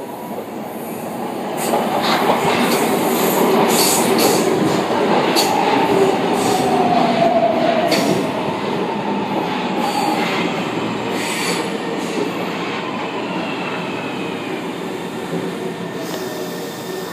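São Paulo Metro Line 1 train arriving and slowing along the platform. Wheel and rail noise builds as it approaches, with sharp clicks over the rails and a falling whine as it brakes. A fainter high falling squeal comes later, as the noise eases off.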